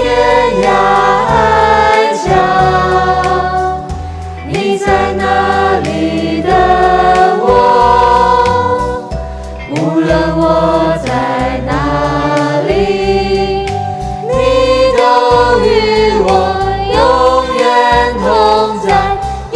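Christian worship song: a choir of voices sings a flowing melody over steady instrumental accompaniment.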